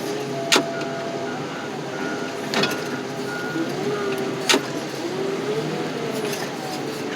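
Steady machinery noise with a wavering whine, a faint repeating beep, and three sharp clanks spaced about two seconds apart.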